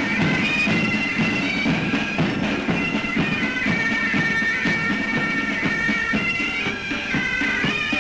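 Bagpipes playing a tune, a melody of held notes stepping from one pitch to the next every half second or so, steady in loudness throughout.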